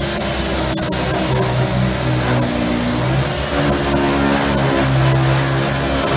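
Pneumatic dual-action (DA) air sander running on the steel sheet metal of a tractor hood, sanding off old paint: a steady loud hiss and whir whose pitch steps up and down as the sander is pressed and moved.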